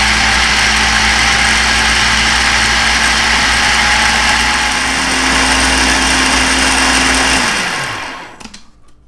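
Small countertop food processor running steadily as it purees chickpeas, roasted red peppers and tahini into hummus. About seven and a half seconds in it is switched off and the motor winds down with a falling hum, followed by a few plastic clicks as the lid is handled.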